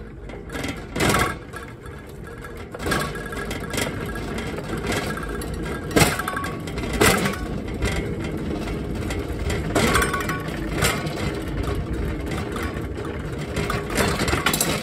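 Manual pallet jack rolling a loaded test stand over concrete and pavement: a steady rumble from the wheels, with the stand's aluminium frame, valves and fittings rattling. Several sharp knocks and clinks as it jolts along.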